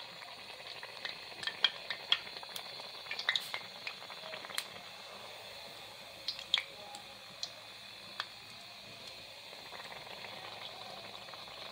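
Hot oil bubbling and sizzling around a ball of antasha pitha batter deep-frying in a kadai: a steady low hiss with scattered small crackles and pops, most of them in the first half.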